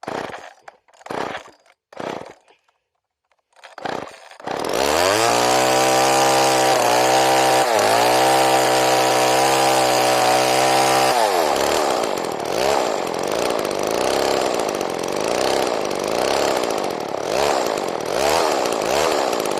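Homelite Super 2 two-stroke chainsaw being pull-started: a few short tugs on the starter cord, then the engine catches about four seconds in and runs at a steady high speed. Around eleven seconds in it drops to an uneven idle that rises and falls about once a second, while the low-speed carburetor mixture is being tuned.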